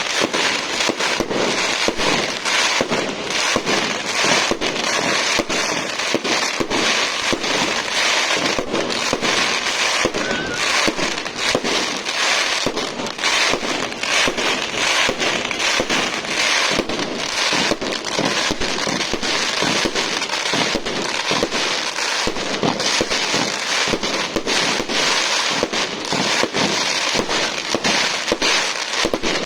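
Fireworks going off in rapid, continuous succession: a dense crackle of many quick bangs, with no pause.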